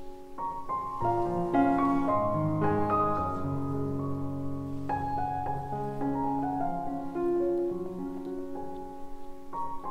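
Background piano music: a melody of struck notes over lower chords.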